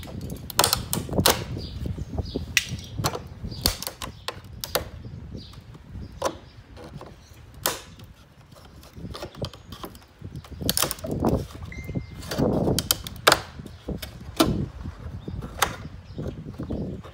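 Hard plastic of a car's high-level brake light housing and tailgate trim being handled and pried out, with irregular sharp clicks and knocks and some rubbing and rustling between them.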